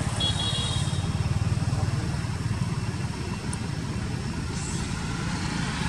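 Steady low rumble of an engine idling.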